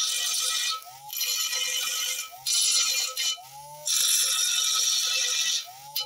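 Small hand-held DC motor with a thin abrasive disc grinding down welds on a steel lathe bed: a harsh grinding hiss in four bursts. Between the bursts, about a second, two and a half and three and a half seconds in and again near the end, the motor's whine rises as the disc comes off the steel and speeds up.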